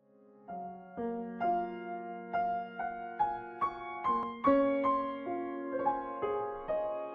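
Gentle background piano music, a slow melody of single notes over sustained low notes, starting about half a second in after a brief silence.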